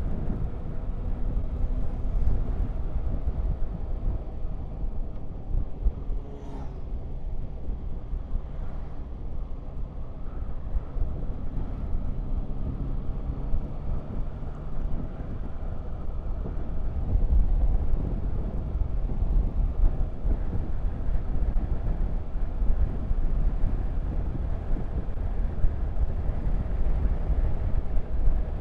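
Yamaha Tracer 9 GT's three-cylinder engine running at road speed, its pitch rising and falling slightly, under a steady low rumble of wind on the microphone.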